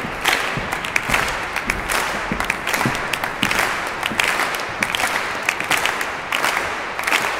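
Audience applauding steadily: many hands clapping at once, with no music playing.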